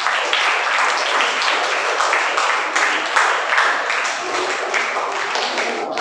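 An audience of schoolchildren applauding, many hands clapping at once in a dense, steady patter.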